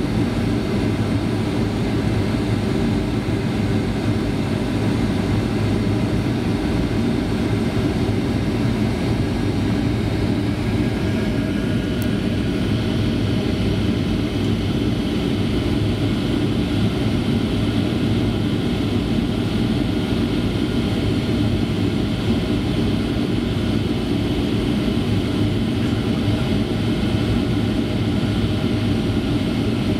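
Jet airliner cabin noise on final approach: a steady drone of the engines and rushing air, heard from inside the passenger cabin. About halfway through there is a faint click, and the rushing hiss turns a little brighter.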